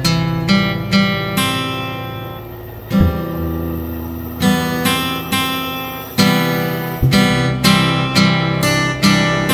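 Background music: an acoustic guitar strumming chords, each stroke ringing out and fading before the next.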